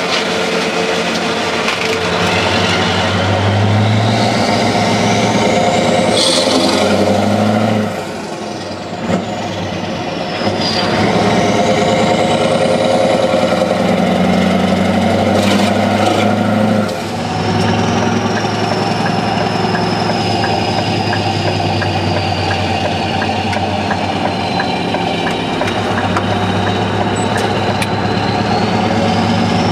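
Scania R500 truck's V8 diesel running on a straight-pipe exhaust while driving, a steady deep engine note. The note drops away briefly twice, around eight and seventeen seconds in, and a high whistle rises and falls above it.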